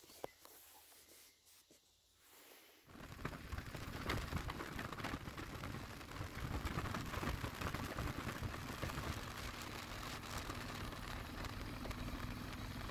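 Near silence with a single faint click, then about three seconds in an abrupt switch to steady rumbling outdoor noise, with a faint low engine hum near the end.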